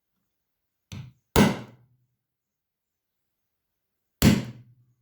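Hammer striking a hollow punch to cut and enlarge the screw holes in an orbital sander's replacement backing pad: a lighter tap about a second in, a hard blow right after, and another hard blow near the end, each with a short dull ring.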